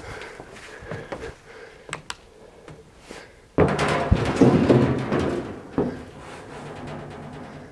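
A few sharp knocks, then about halfway through a sudden loud rattling rumble that lasts around two seconds and ends with another knock.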